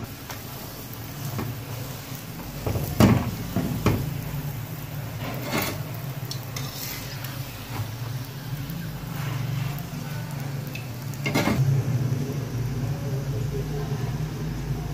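A paratha sizzling in oil on a flat iron tawa while a slotted metal spatula presses it and flips it. A few sharp clacks and scrapes of the spatula on the griddle stand out: the loudest about three seconds in, others near four and five and a half seconds and again near eleven seconds. A steady low hum runs underneath.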